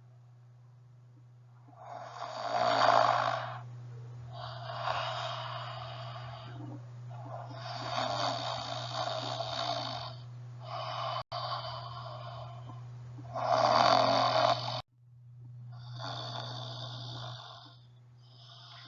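Loud snoring, six long rasping snores with pauses between them, standing in for the lion's snores. The first and fifth snores are the loudest.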